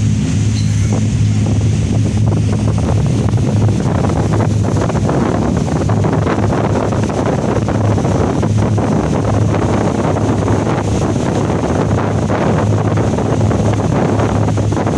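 Boat engine running steadily, a constant low hum, with water rushing past and wind buffeting the microphone.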